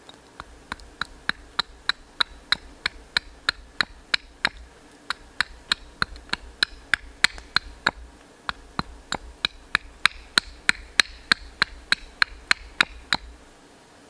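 A small hatchet with its blade set in a piece of wood, knocked again and again on a wooden chopping stump to split it: quick, even wooden knocks about three a second, in three runs with two short breaks, ending shortly before the end.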